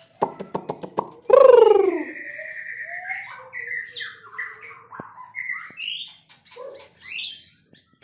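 White-rumped shama singing: a quick run of clicking notes, a loud harsh call that slides downward, then a varied string of clear whistled phrases rising and falling.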